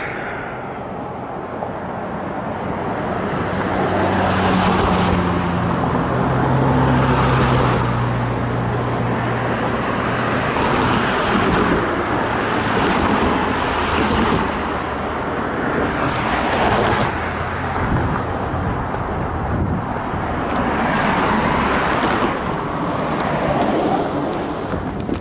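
Road traffic: vehicles passing one after another, the noise swelling and fading several times, with a low engine hum from one vehicle for several seconds early on.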